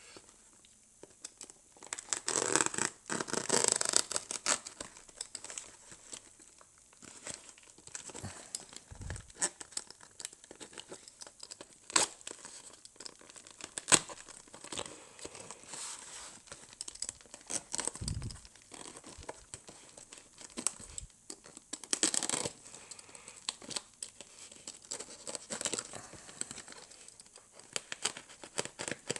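Duct tape being slit and ripped off a cardboard box: bursts of tearing and crinkling, with scratching of a blade on the cardboard and a few sharp taps. The loudest rips come a couple of seconds in and again near the end.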